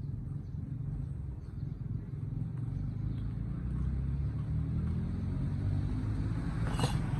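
A small engine running at low speed with a steady low rumble that slowly grows louder, with one sharp click near the end.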